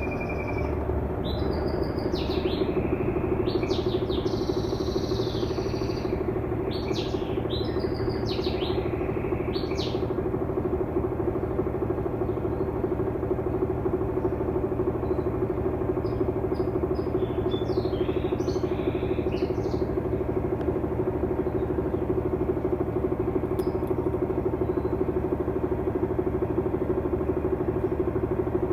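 Mueller Energy 8 kg automatic washing machine running steadily in its intermediate spin, a constant motor hum with a steady tone. Birds chirp over it during roughly the first ten seconds and again briefly later.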